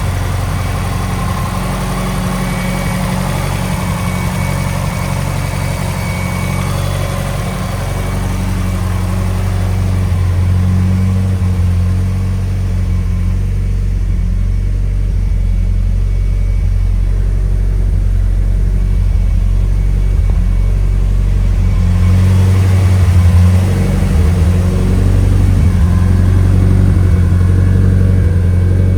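Turbocharged flat-four engine of a 2005 Subaru STi running steadily while its coolant system is burped of trapped air. It gets a little louder about ten seconds in and again a little past twenty seconds.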